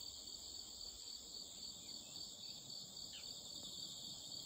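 Faint, steady chorus of insects: a high, evenly pulsing trill that carries on without a break. A couple of brief falling chirps sound over it about two and three seconds in.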